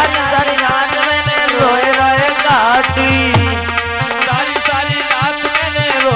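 Devotional folk music: a hand drum beating a steady rhythm under a wavering, ornamented melody line.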